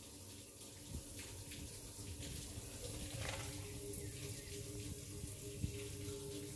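Faint steady running water, like a tap or hose trickling, with a light knock about a second in and another near the end.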